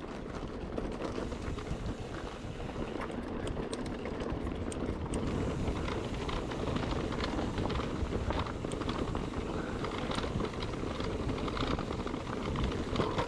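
Mountain bike riding over a rough dirt trail: a steady rumble of tyres on the ground, with the bike's parts rattling and clicking, most busily about three to five seconds in.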